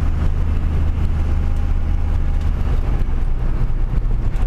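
Cummins 5.9-litre inline-six turbo diesel of a Dodge Ram pickup heard from inside the cab: a steady low drone with road noise while driving. The low rumble changes about three seconds in, during a second-to-third upshift test of the 45RH automatic.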